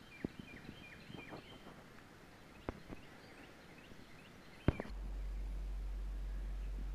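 Outdoor woodland ambience with small birds chirping in short high calls and a few sharp clicks. About five seconds in, a steady low rumble starts and holds.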